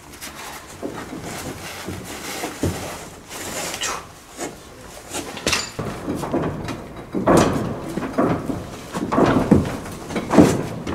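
Climbing sounds: boots and hands knocking and scraping against old wooden panels and steel framework as a person climbs down, in irregular thuds and scuffs that grow busier and louder in the second half.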